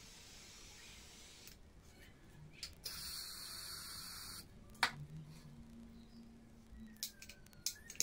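Faint steady hiss of a small handheld torch passed over wet acrylic paint, stopping about a second and a half in. A louder hiss follows for about a second and a half, then a few sharp clicks and knocks.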